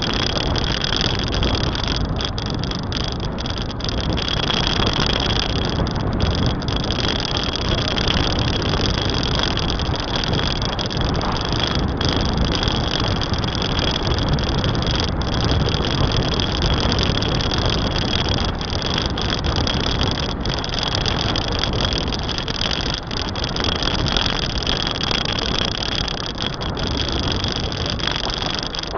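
Steady rush of wind and road noise from a moving car, heard on a small action camera's microphone, with a steady high whine over it.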